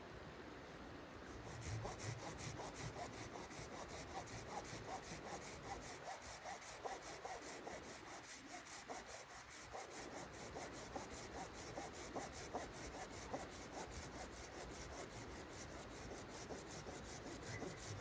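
Folding hand saw cutting through a small log in quick, even back-and-forth strokes, starting about a second and a half in.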